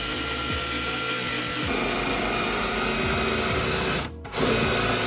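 Angle grinder cutting slits into metal rivet heads so they can be broken off, running steadily with a short break about four seconds in.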